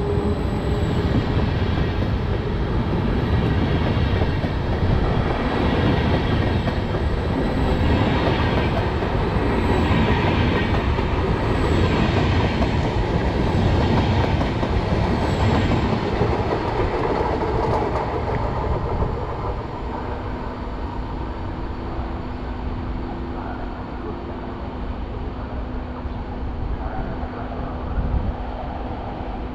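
A train passing close by on the rails, with a faint repeat about every two seconds. About two-thirds of the way through the noise eases off, leaving a lower, steady hum.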